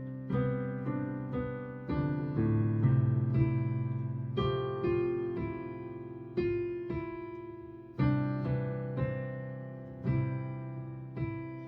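Slow instrumental keyboard accompaniment with no singing: chords struck every half second to a second and left to ring and fade, with a few stronger chords standing out.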